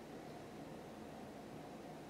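Faint steady background hiss with no distinct handling sounds: room tone.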